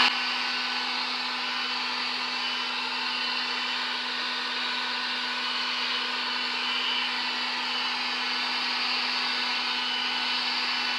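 Drill Master heat gun running steadily on its high setting: an even rush of blown air over a steady motor hum, heating EVA foam pieces so they can be bent to shape.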